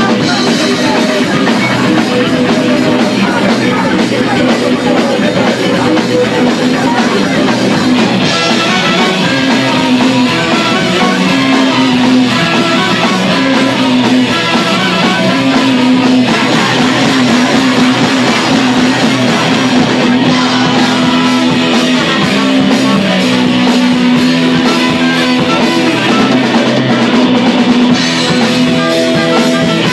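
Live band playing loud amplified rock music: electric bass, electric guitar and drum kit.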